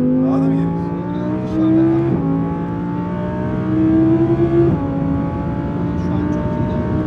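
Audi R8's 5.2-litre V10 heard from inside the cabin, pulling hard on track. Its pitch climbs steadily and then drops sharply twice, about two seconds in and again near five seconds, as it shifts up a gear each time.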